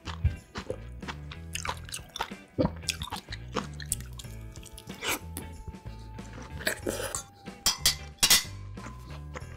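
Close-miked wet, juicy chewing and biting of peeled orange wedges, with sharp smacks and the clink of a metal fork against a plate, over soft background music.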